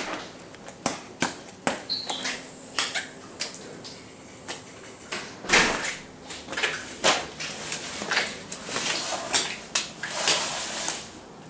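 Footsteps on a wet laminate floor: irregular clicks and scuffs, louder and more frequent from about halfway through.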